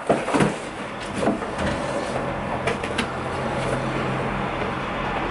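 Footsteps and knocks of cardboard boxes being handled and carried out through a doorway, followed from about a second and a half in by a steady low engine hum.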